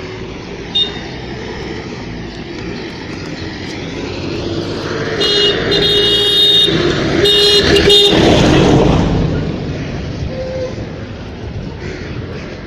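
A van passing by over steady traffic noise, getting louder to a peak about eight seconds in and then fading away. Its horn sounds twice as it approaches: one long honk and then a shorter one.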